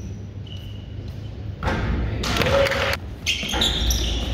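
Basketball game noise in a gym: thuds, with a loud burst of crowd noise that rises about a second and a half in.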